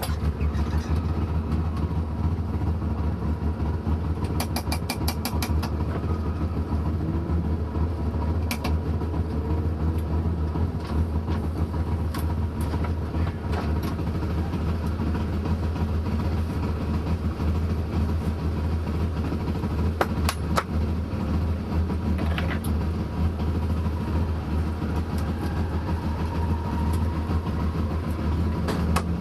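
Toyota AE85 Sprinter Trueno's 1.5-litre four-cylinder engine running at a steady, low speed through its exhaust, with a few sharp clicks: a quick run of them about five seconds in and single ones later.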